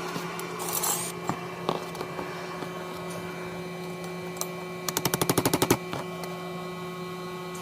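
A quick, even run of about ten sharp clicks, roughly twelve a second, lasting under a second about five seconds in, from a hand tool such as a socket ratchet being worked during strut removal. A few single knocks come earlier, over a steady hum.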